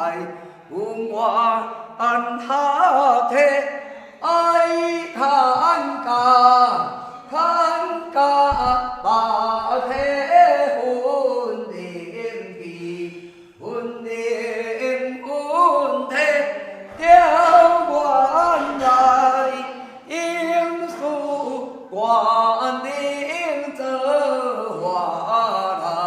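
A woman singing unaccompanied in a flowing, chant-like melody, with phrases of a few seconds and brief breaths between them.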